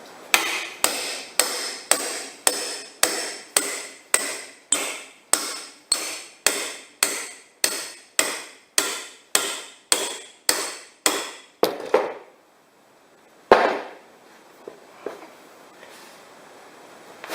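A hammer striking a small demolition crowbar wedged against a steel wheel rim. It lands about twenty steady blows at roughly two a second, each ringing briefly, then pauses before one last harder blow. The blows drive the tyre bead off the rim to break it loose.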